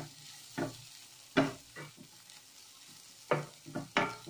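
Spatula scraping and stirring diced vegetables and ground spices in a nonstick kadai, in short irregular strokes with a lull in the middle, over a faint sizzle of frying oil. The vegetables are being sautéed until the raw smell of the spices goes.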